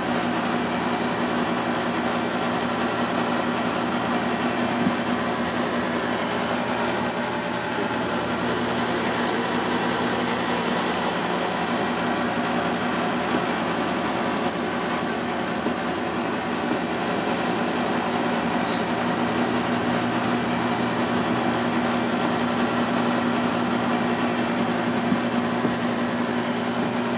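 Steady drone of kitchen machinery, a constant low hum with one held tone, with a few faint taps of a knife on a cutting board as octopus tentacles are sliced.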